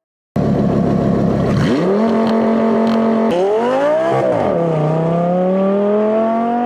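Car engine revving and accelerating: the pitch climbs, holds, swells up and back down about four seconds in, then rises slowly and steadily.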